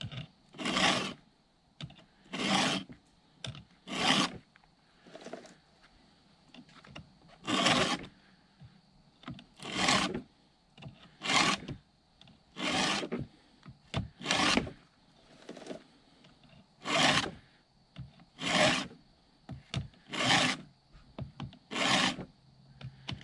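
Stihl 2-in-1 chainsaw sharpener hand-filing the dull low-kickback chain of a Stihl MS170: a rasping forward file stroke about every second and a half, five strokes to each cutter. The round file sharpens the cutter while the flat file takes down the raker beside it.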